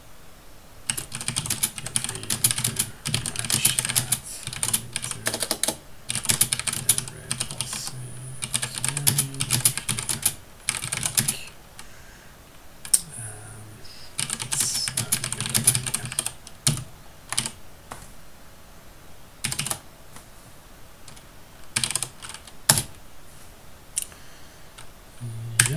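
Typing on a computer keyboard: two fast runs of keystrokes, then scattered single key presses through the last third.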